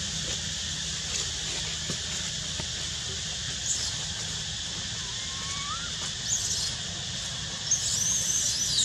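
High-pitched animal squeaks: a short one about a third of the way in, another a little past halfway, and a longer wavering one near the end. They sit over a steady outdoor hiss.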